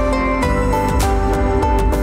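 Background music: an instrumental track with held melody notes over a regular beat about twice a second.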